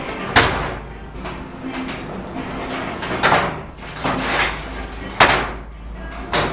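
Steel brick trowel scraping and knocking mortar against cement bricks as the joints of the top course are packed: several short, sharp strokes a second or so apart, with gaps between them.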